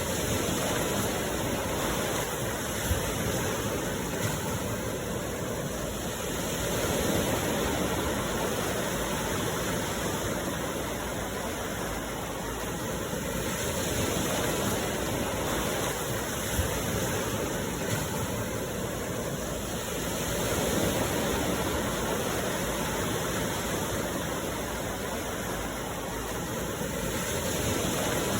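Sea waves washing onto the shore: a steady rush that swells and eases about every six or seven seconds.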